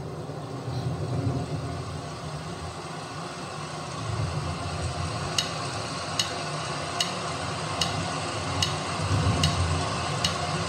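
Steady background hiss and hum, then from about five seconds in a click track ticking evenly about every 0.8 seconds (about 75 beats a minute), counting in a backing sequence.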